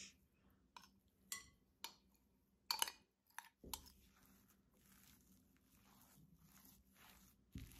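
Faint clinks of a metal spoon against glass bowls, about five sharp taps in the first three seconds as the sautéed saltfish is scraped in. From about the fourth second comes a soft, steady scraping and squishing as the spoon stirs the saltfish into the mashed green banana mixture.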